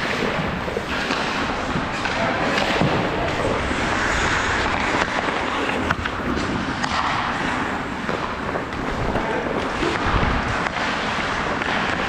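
Hockey skates scraping and carving on rink ice, with scattered clacks of sticks and puck.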